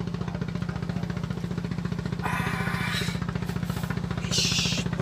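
A small engine running steadily, a low throbbing drone with a fast even beat. Two short hissing bursts break over it, one a little after two seconds in and a higher, brighter one near the end.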